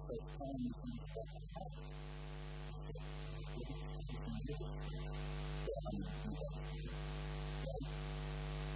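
Steady electrical mains hum with a buzzing ladder of overtones, carried through the sound system, with a few faint, indistinct sounds beneath it.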